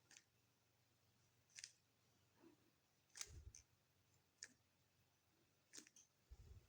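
Rubik's cube being turned: about seven faint, irregular clicks of the layers snapping round, with a couple of soft low bumps from handling the cube.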